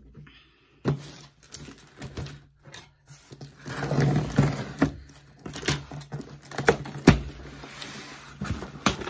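Scissors cutting the packing tape on a cardboard shipping box to open it, with a stretch of scraping and rustling, and scattered knocks and clicks of cardboard being handled.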